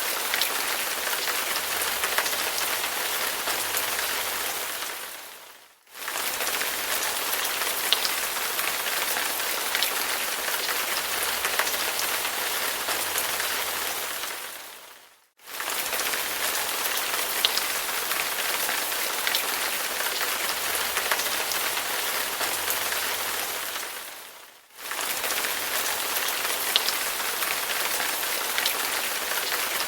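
Steady rain falling on a surface, with scattered individual drop ticks. It fades out to near silence and comes straight back three times, about every nine and a half seconds.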